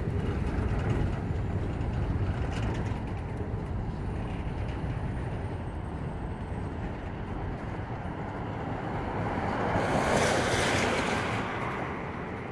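Freight boxcars rolling past at close range: a steady low rumble of steel wheels on rail. About ten seconds in, a louder rushing noise swells and fades.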